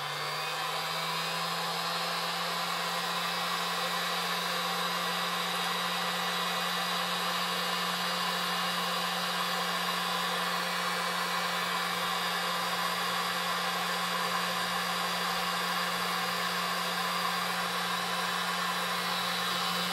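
Electric heat gun running steadily, its fan humming with a low steady tone under a wide rush of blown hot air, as it shrinks heat-shrink tubing snug over a fly-line joint.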